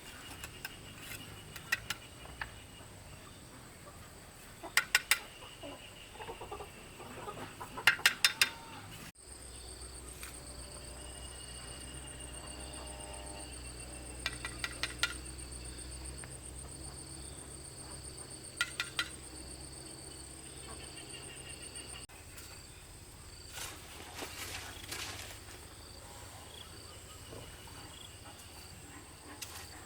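Sharp clacks of stone knocking on stone, coming in quick groups of three or four. They sit over a steady high insect drone and a faint rural background.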